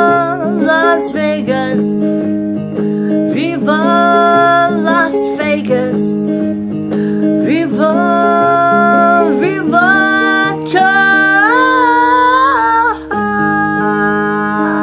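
Strummed guitar with a voice singing long, wavering notes over it. The singing stops about 13 seconds in while a guitar chord rings on.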